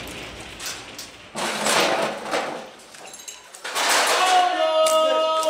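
Men shouting in the echoing aftermath of an improvised gas-cylinder cannon shot, with another sharp thump about a second and a half in. Near the end one long call is held at a steady pitch.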